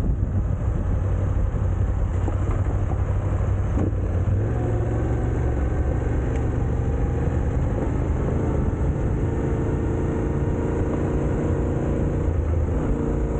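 A vehicle's engine running steadily while on the move, over a heavy low rumble; its engine note comes through more clearly from about four seconds in.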